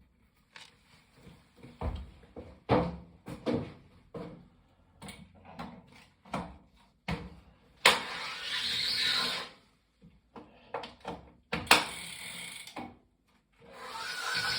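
Irregular clicks and knocks, then the Wahoo Kickr Rollr bike roller trainer spinning in two short runs of about two seconds and one second, and running steadily from about a second before the end.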